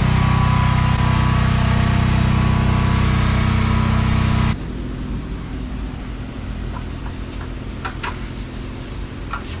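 A steady mechanical drone from a running engine or motor, cut off abruptly about four and a half seconds in, followed by quieter shop noise with a few sharp clicks and knocks.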